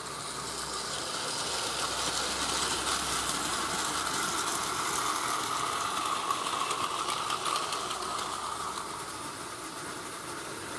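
Battery-powered Plarail toy train running on plastic track: a steady motor whir with fine wheel and track-joint clatter, growing louder as the train comes close round the nearby curve and easing off again near the end.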